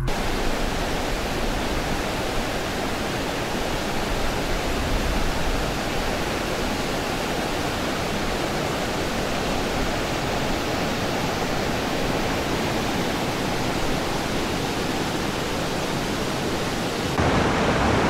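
Waterfall pouring over a rock ledge into a pool: a steady, unbroken rush of falling water.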